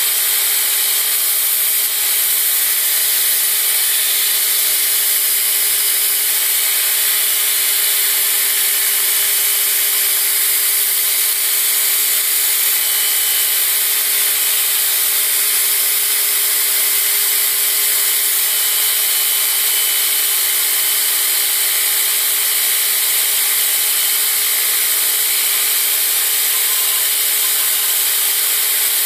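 Belt grinder running steadily with a steel push-dagger blade held against the abrasive belt, grinding the bevels: a continuous hiss with a steady motor hum beneath it.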